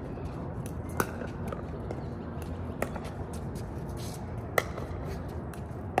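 Pickleball paddles striking a plastic ball in a rally: three sharp pops with a short ring, about two seconds apart, over steady background noise.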